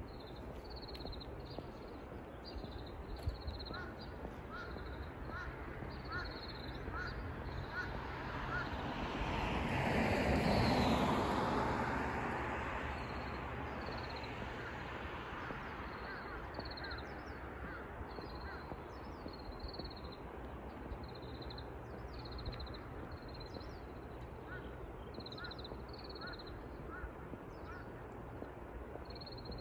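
Birds calling over and over in short, high chirps, with a second run of lower, rising notes. About ten seconds in, a broad rushing sound swells and then fades.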